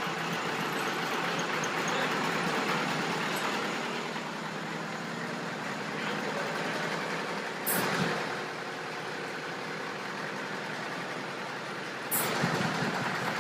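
Vintage engine and the piston air compressor it drives, running steadily while they fill the fog horn's air tanks. Two short, sharp bursts of noise about four seconds apart break in near the middle and near the end.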